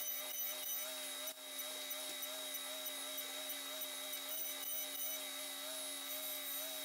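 CNC machining centre milling an aluminium cylinder head: a steady, fairly quiet spindle hum with a constant higher tone and faint ticking.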